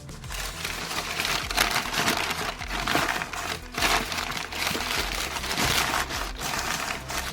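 Packing material being crumpled and handled, a continuous irregular crinkling over faint background music.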